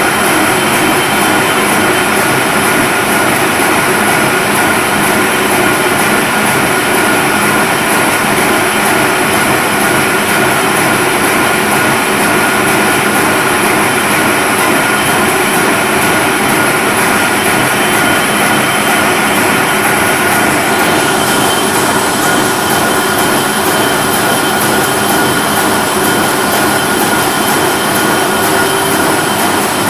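Wolf paper sheeter with inline printing unit running: a loud, steady mechanical whir with a constant high-pitched whine.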